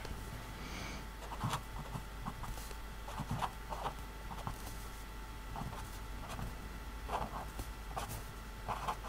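Artline marker writing on lined paper: a run of short pen strokes at an uneven pace, over a faint steady hum.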